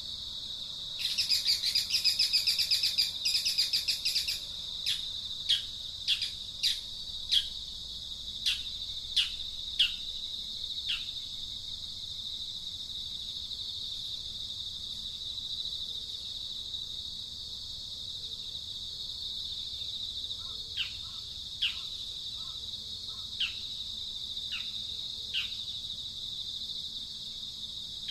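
Outdoor birdsong over a steady high insect buzz: a quick chattering burst in the first few seconds, then a run of short downward-sliding whistled notes, one every half second or so. A second, slower run of the same notes follows past the middle.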